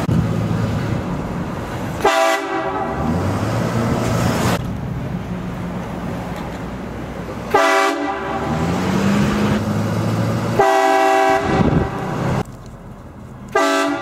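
Train horn mounted on a pickup truck blasting four times, a few seconds apart, each blast starting abruptly; the first is the longest, about two seconds.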